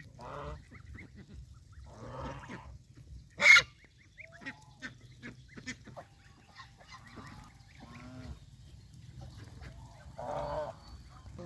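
Domestic geese honking in short calls spaced several seconds apart, with one much louder, harsh call about three and a half seconds in. Faint scattered clicks sound between the calls.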